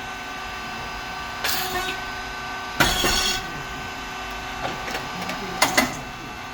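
Rice cake popping machine running with a steady hum from its hydraulic pump motor and fan, and one sharp pop with a burst of hiss about three seconds in as a cycle of rice chips puffs out of the heated moulds. A short hiss comes a little before it, and two quick mechanical clicks near the end.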